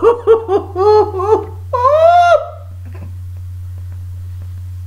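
A woman laughing hard in quick high-pitched bursts, ending about two seconds in with one long rising-and-falling cry of laughter. After that only a steady low electrical hum is left.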